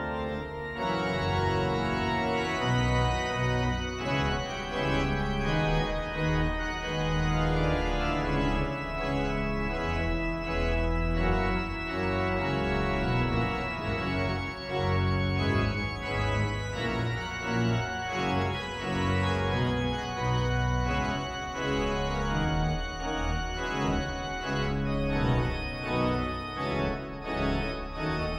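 Church pipe organ playing a full-voiced piece: sustained chords over a moving bass line.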